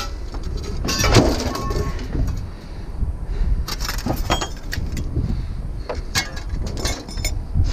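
Loose scrap metal being handled: a run of clanks and rattles, some pieces ringing briefly, loudest about a second in, over a steady low rumble.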